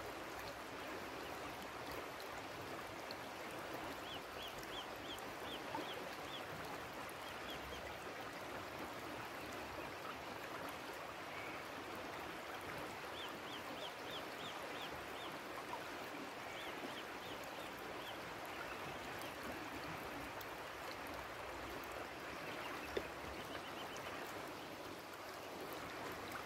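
Steady rush of fast-flowing river water. Several times, short runs of quick, high chirps from a bird sound over it.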